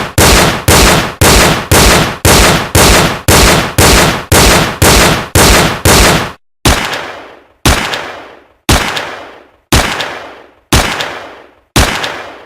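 Gunshots from a sound-effects pack: a string of single shots at about two a second, then, after a brief pause a little past halfway, slower shots about once a second, each with a longer echoing tail.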